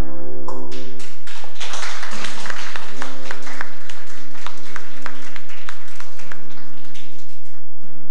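Guitar music: held chords with a change about half a second in, then a run of sharp percussive strokes over sustained notes.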